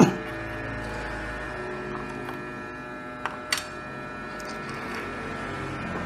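A steady hum of several held tones throughout. Over it come a sharp click at the very start and two smaller clicks in quick succession a little over three seconds in, from a hand handling the plastic cooling fan assembly on a laptop motherboard.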